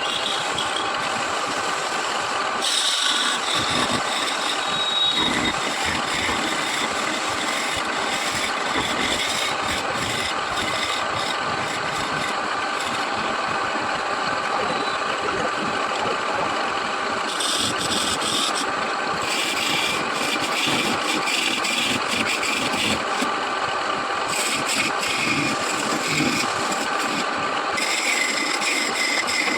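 Wood lathe running steadily, with the scraping of a turning tool cutting the spinning wood coming and going several times.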